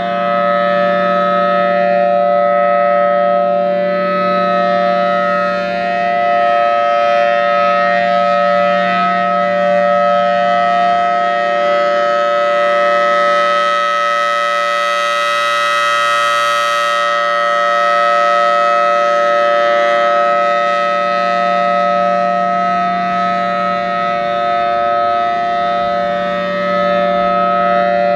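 Federal Signal Thunderbolt 1003 outdoor warning siren sounding its alert signal: one steady tone held without a break. As the rotating horn comes round, the sound grows brighter and sharper about halfway through, then mellows again.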